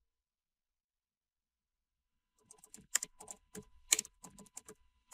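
Silence, then about two and a half seconds in a computer keyboard starts typing: a quick, uneven run of keystrokes, several a second, as a command is typed into a terminal.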